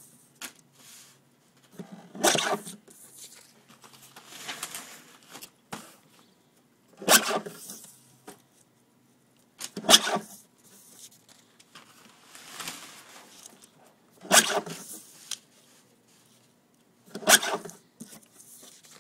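X-ACTO paper trimmer cutting sheets, five sharp cutting strokes at irregular intervals, with fainter rustling of paper being lined up and flipped between cuts.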